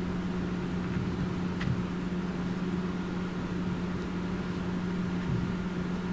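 A steady low machine hum with noise behind it, and one light click about one and a half seconds in.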